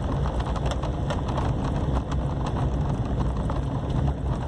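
Car-interior noise while driving on a dirt road: a steady low engine and road rumble, with irregular knocks and rattles as the tyres and suspension run over the rough, unpaved surface.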